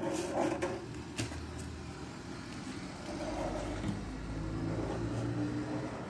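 Cat purring steadily, a low rumble that swells slightly in the second half. A few light clicks or rustles sound in the first second or so.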